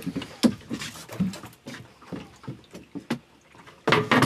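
Scattered knocks and clatter of tackle and hull on a small fibreglass boat, with a few short grunts and breaths from the angler as he handles a hooked fish at the side, and a louder burst near the end.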